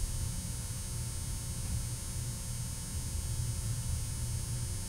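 Steady low electrical hum with faint room tone, no distinct strokes or knocks.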